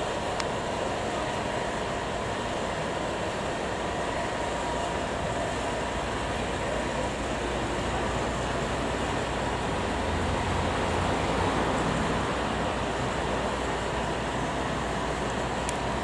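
Steady outdoor road-traffic noise, a low rumble under an even hiss, swelling a little about ten seconds in.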